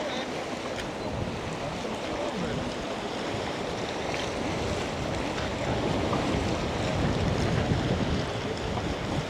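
Wind buffeting the microphone over a steady rushing wash, with the gusts growing louder about halfway through.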